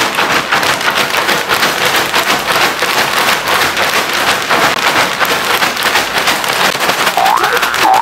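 Popped popcorn shaken hard inside a closed plastic snack bag, a dense, steady crackling rattle. A short rising vocal whoop comes near the end.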